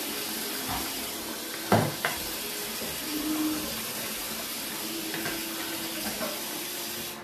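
Tap water running into a pot of boiled black-eyed beans as they are washed, with a sharp knock about two seconds in; the running water stops abruptly at the end.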